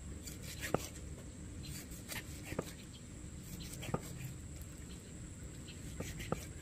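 Chef's knife slicing raw chicken breast into strips on a wooden chopping block, the blade knocking on the wood five times at uneven intervals with softer cutting ticks in between.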